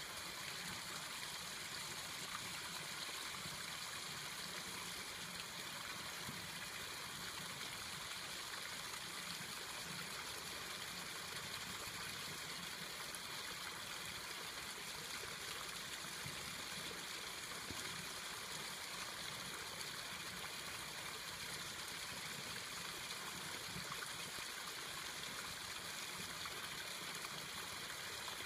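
Steady trickle of running water in a garden koi pond, unchanging throughout.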